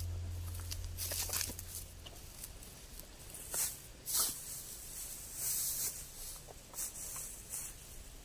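Footsteps and rustling in dry rice-straw stubble, a scattered series of short crackly rustles as someone in rubber boots walks and stoops to gather fallen pods. A low hum fades out over the first two seconds.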